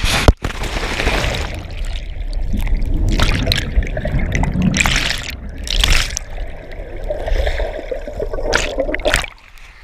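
A cliff diver carrying a GoPro hits the sea with one sharp, very loud splash about a third of a second in. This is followed by underwater rushing and bubbling as he goes under, which drops away shortly before the end.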